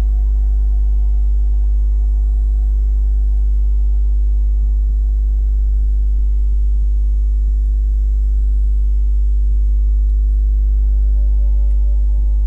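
A loud, steady, very low hum, with faint sustained music tones above it.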